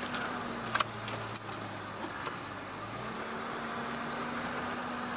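Safari game-drive vehicle's engine running steadily as the vehicle drives off to a new viewpoint, with one sharp knock just under a second in.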